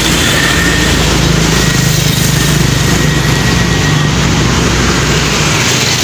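Bus engine running steadily, a low drone that is strongest in the middle, over a haze of street noise.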